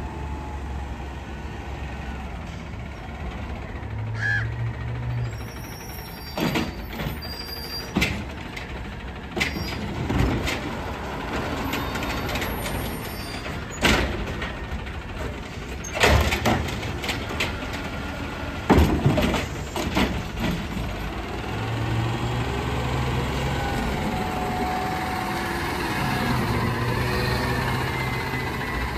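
Autocar CNG automated side-loader garbage truck running at the curb while its hydraulic arm picks up and dumps carts. It gives a series of sharp bangs and knocks through the middle, air-brake hisses, and the engine note swelling at times as the arm works.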